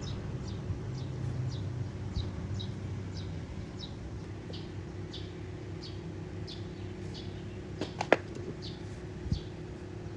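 A small bird chirping over and over, about two short high chirps a second, over a low steady hum. A sharp click about eight seconds in, and a softer one a second later.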